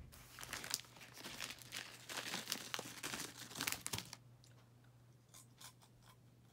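Close crinkling and rustling noise for about four seconds, then a few faint scattered clicks.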